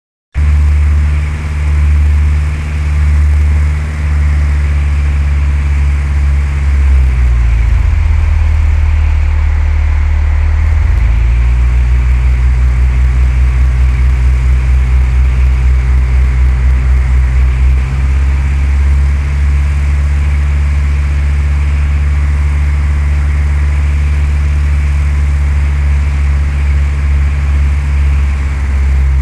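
Cessna 172's four-cylinder piston engine and propeller droning steadily. The engine note shifts about seven seconds in and returns to its earlier pitch about four seconds later.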